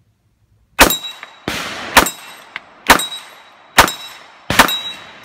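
Semi-automatic AR-style rifle firing five loud shots at a steady pace of roughly one a second, starting about a second in, with a softer bang between the first two. Several shots are followed by a brief high metallic ring.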